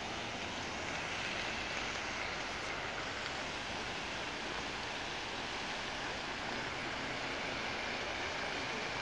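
Steady splashing of fountain jets falling into a pool, an even hiss of water over a low background rumble.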